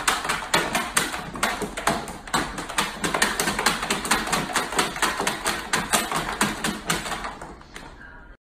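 A puppy's claws scratching and scrabbling fast at the floor of a plastic storage bin as it digs, about five scrapes a second, fading out near the end.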